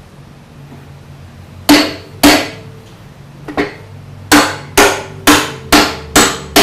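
Hammer blows on the steel dogs of a ship's bulkhead hatch door, driving them tight to pull the door against its coaming. Two blows, a single one, then a steady run of six, each a sharp metal knock with a short ring.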